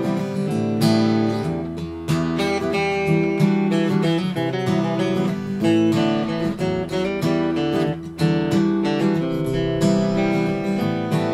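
Two acoustic guitars strummed and picked together in a steady rhythm.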